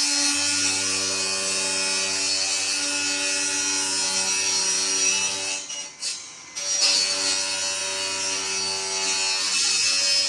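Handheld electric power tool cutting sheet-metal HVAC duct, its motor running at a steady pitch with a hiss of cutting. It stops briefly about six seconds in and starts again.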